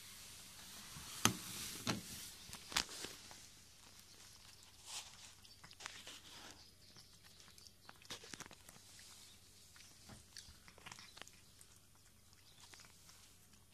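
Siamese cat feeding: faint, irregular small clicks and crunches, with two louder clicks in the first three seconds.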